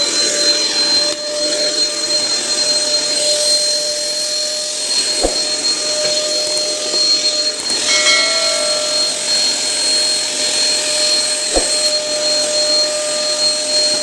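Inalsa Stark canister vacuum cleaner just switched on: the motor spins up and settles into a steady high whine with a rush of air, test-run after repair. The note shifts briefly about eight seconds in, and there are two faint clicks.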